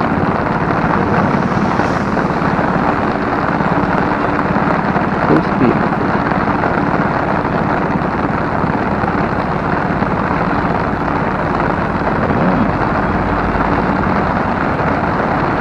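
Rain falling on an umbrella held over the microphone, very loud: a dense, steady patter of drops on the canopy.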